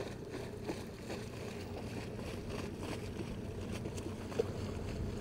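A motor boat's engine running steadily as it cruises past on the river, a low drone growing slightly louder, with a few faint knocks.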